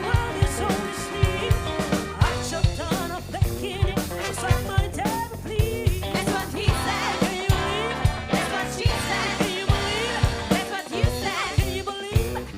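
Live funk and soul band playing a groove: a drum kit keeps a steady beat under bass and other instruments, with a wavering lead melody coming in about two seconds in.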